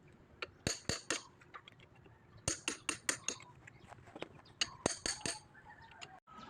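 Metal parts clinking and tapping against each other during disassembly, in three short clusters of sharp clicks, with a brief ringing tone a little past the middle.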